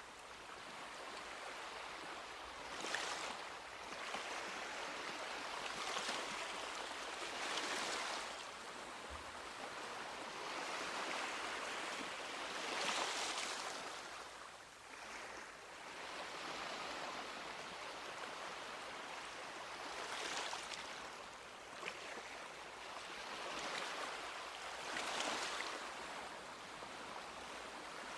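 Small sea waves washing onto a beach: a steady hiss of surf that swells into a brighter splash every few seconds as each wave breaks.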